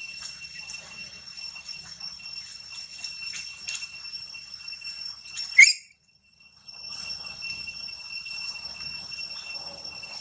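A long-tailed macaque gnawing and scraping at a green coconut, with many small crunching clicks, over a steady high-pitched ringing drone. A short, sharp rising squeak is the loudest moment, about five and a half seconds in; the sound then cuts out for about a second before the drone and clicks return.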